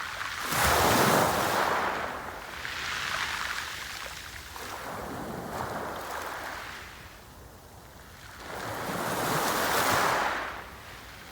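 Sea waves breaking on the shore, the surf rushing in and falling back in swells. The loudest breaks come about a second in and near the end, with smaller ones between.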